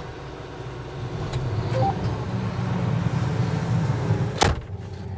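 A vehicle engine running, heard from inside the cab, growing louder about a second in. Near the end there is a single sharp knock.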